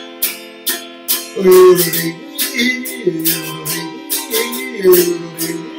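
Autoharp strummed in a steady rhythm, about two to three strums a second, its chords ringing on between strokes.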